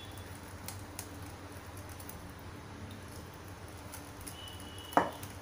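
Small wire whisk stirring thick mango shrikhand in a glass bowl: faint scattered light clicks and taps, with one louder knock near the end.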